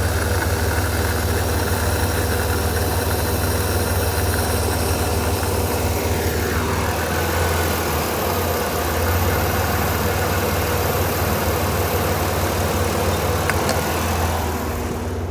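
1994 Chrysler Town & Country minivan's V6 engine idling steadily, with the electric radiator cooling fans running. The engine has just taken a Powerfoam intake-cleaner treatment.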